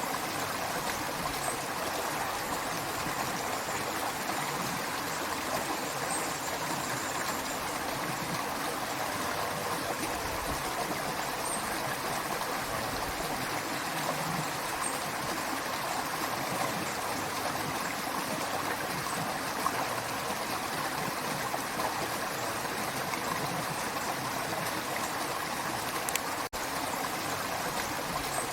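Creek water running and babbling over its bed, steady throughout, broken only by a split-second dropout about two seconds before the end.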